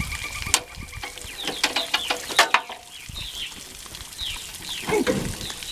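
Birds calling in short falling chirps, with a couple of sharp metallic clicks, one about half a second in and a louder one about two and a half seconds in.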